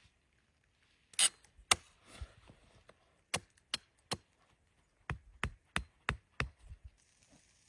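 A series of about a dozen sharp knocks, like wood being struck or chopped, coming at an uneven pace with the loudest about a second in.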